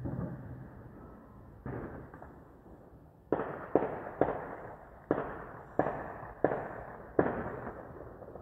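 A run of sharp bangs, each trailing off in an echo. Two weaker ones come first, then seven louder ones at irregular gaps of about half a second to a second.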